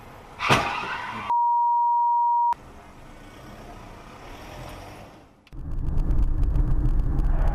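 A sudden bang of a car collision about half a second in, followed by a steady high censor bleep lasting about a second. Then quieter dashcam road noise, and after a cut a loud, constant low rumble of road and wind noise inside a moving car.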